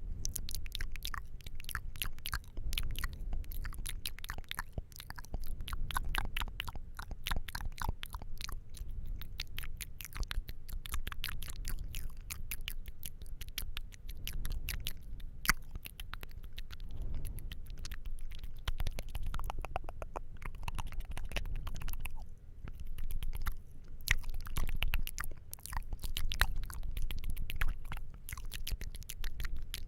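Close-miked ASMR mouth sounds: rapid, nearly continuous wet clicks and smacks of the lips and tongue.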